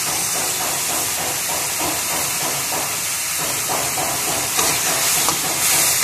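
Onion, garlic and ginger frying with oyster sauce in a hot, steaming wok: a loud steady sizzle that swells near the end, with a metal spatula scraping and stirring the pan.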